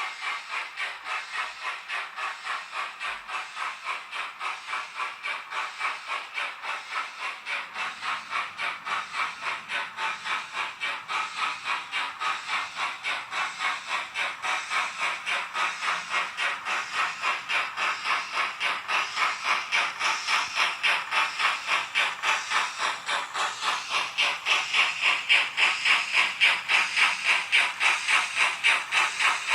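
Digital steam sound from a Dietz X3 decoder in a model BR 96 steam locomotive: a steady run of even, hissing chuffs, several a second, growing louder over the last few seconds.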